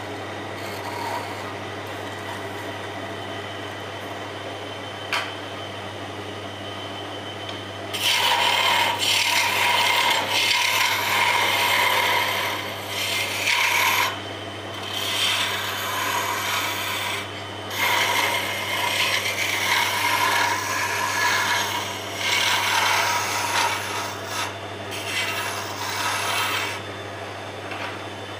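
Wood lathe running with a steady hum. From about eight seconds in, a chisel scrapes the spinning wooden spindle in repeated passes with short pauses between them, stopping shortly before the end.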